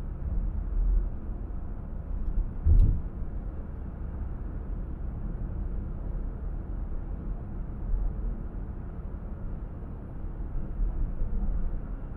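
Steady low rumble of a car driving, road and engine noise, with a single short thump about three seconds in.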